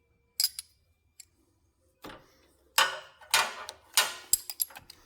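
Irregular sharp clicks and knocks of a lawn-mower battery being handled and slid in its tray: a couple of light clicks about half a second in, then a busier run of louder knocks in the second half.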